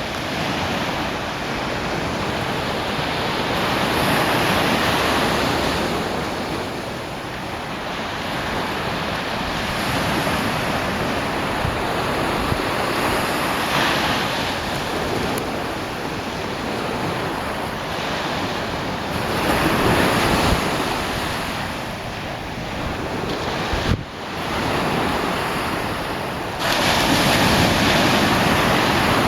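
Ocean surf breaking on a sandy beach, a steady wash that swells and eases as each wave comes in, every few seconds.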